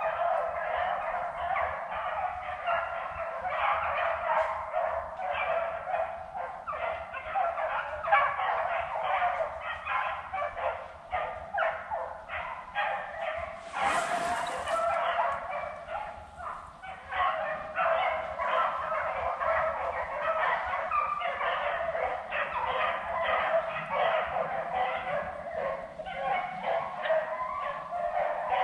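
A pack of beagles baying as they run a rabbit, many short overlapping voices going on without a break. There is a brief burst of noise about halfway through.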